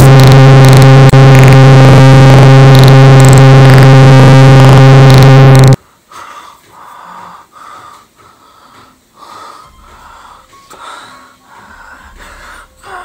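A very loud, steady, distorted droning tone with a strong low hum and many overtones, a horror-film sound effect, cuts off suddenly about six seconds in. It is followed by a man's quieter, raspy breathing in repeated short breaths.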